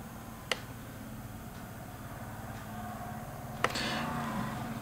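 Two sharp clicks about three seconds apart as fingers press on the G1200 digital microscope, over a faint steady low hum.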